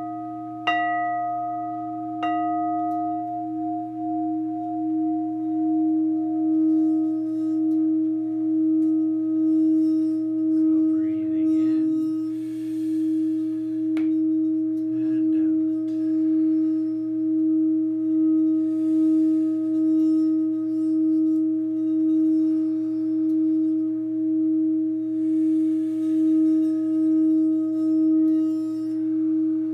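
Metal singing bowl struck twice with its fuzz-covered baton, then sung by rubbing the baton around the rim: a steady low ringing tone with a slow, even wavering and fainter higher overtones.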